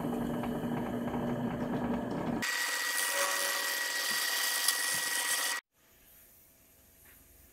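A benchtop drill press (SK11) running as its bit drills the tap pilot hole into an M10 nut, with a steady motor hum. About two and a half seconds in, the sound switches abruptly to a thinner hiss with a steady high whine. It cuts off suddenly about five and a half seconds in, leaving only faint sound.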